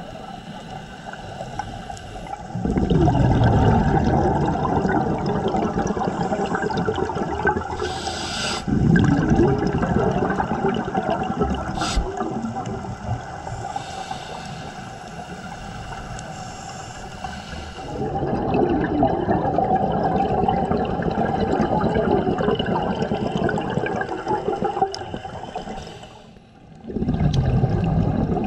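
Scuba regulator breathing heard underwater: long exhalations of rushing, gurgling bubbles come in four stretches of several seconds each, with quieter gaps between the breaths.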